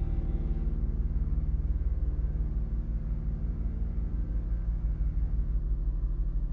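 Low electronic drone: several held tones over a fast, even pulsing throb at the very bottom, with little above.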